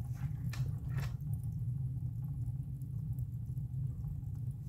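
Tinsmith's soldering stove burning with glowing coals: a steady low rumble, with a few faint crackles about half a second and a second in.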